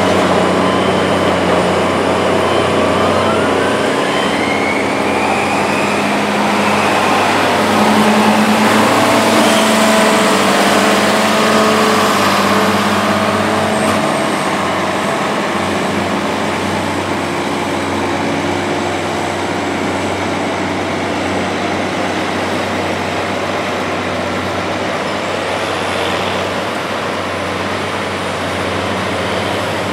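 John Deere diesel tractor engines running steadily under load while packing and pushing up chopped corn silage, with one engine rising in pitch a few seconds in.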